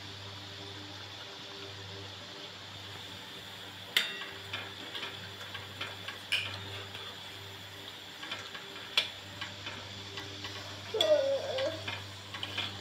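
Onion pakoras frying in hot oil in a metal kadhai, a steady sizzle, with a metal spoon clinking against the pan several times as they are stirred. A cat meows about eleven seconds in.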